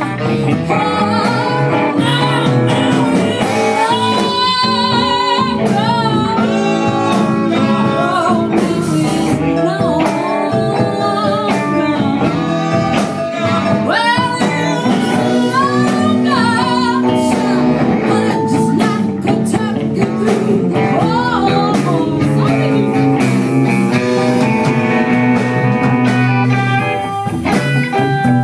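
A blues band playing live: singing with vibrato over guitar and a steady low accompaniment, without a break.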